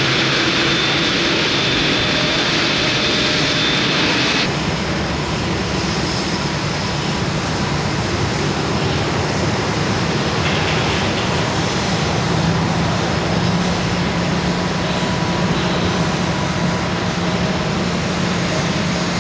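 Airliner engines running loud and steady at close range. A high steady whine sounds over them until the sound changes abruptly about four seconds in, and a low steady tone comes up in the second half.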